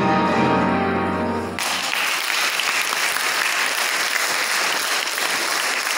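Upright piano's closing chord ringing, stopping about one and a half seconds in, followed by audience applause.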